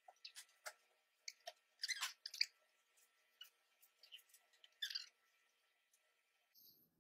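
Faint, scattered clicks, taps and rustles of hands handling cardboard cut-out pieces and a squeeze bottle of white glue on a wooden table, with a couple of slightly louder scrapes around two and five seconds in.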